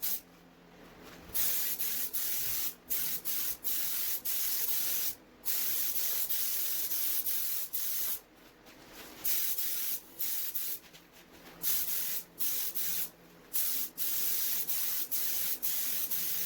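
Paint spray gun hissing in repeated on-off passes, each burst from about half a second to two seconds long with short breaks between, as paint is sprayed onto a car bumper.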